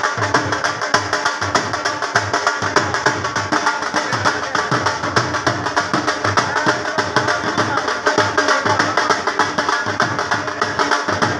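Dhol drums beating a fast, steady rhythm, with a crowd's voices mixed in underneath.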